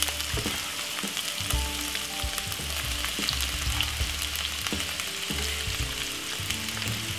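Chopped vegetables sizzling in hot oil in a nonstick wok: a steady crackling fry, with a few light clicks.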